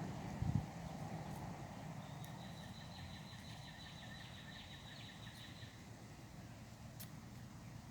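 Faint outdoor ambience with a short low bump about half a second in, then a faint high-pitched pulsing trill, steady in pitch, lasting about three and a half seconds.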